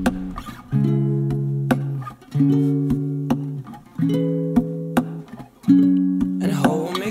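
Background music: a guitar strumming held chords, a new chord about every second and a half. A singing voice comes in near the end.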